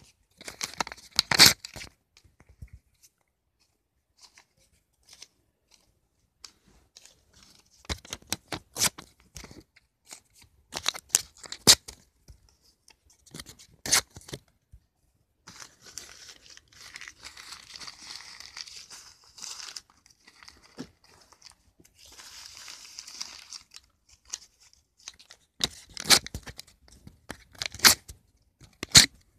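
Lined notebook paper being torn by hand in several bursts of quick rips, with a longer stretch of crumpling and rustling in the middle.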